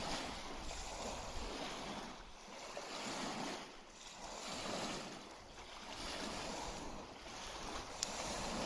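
Small lake waves washing onto the shore, swelling and falling back about every second and a half, with one sharp click near the end.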